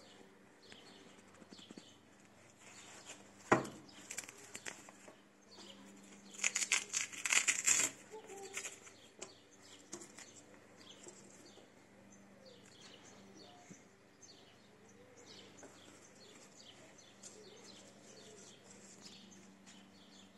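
Hook-and-loop (Velcro) strap of a knee guard pulled open in a short crackling rip about six seconds in, after a single sharp tap a few seconds earlier. Birds chirp faintly in the background.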